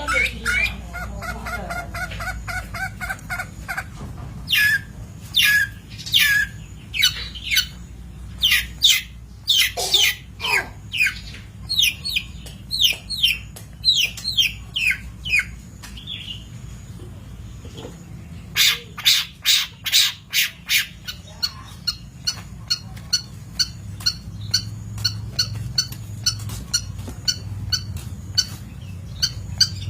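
Long-tailed shrike (cendet) singing: a long series of sharp, downward-sliding whistled notes and harsh chirps, which turns into a faster run of short repeated notes about two thirds of the way through. A steady low hum runs underneath.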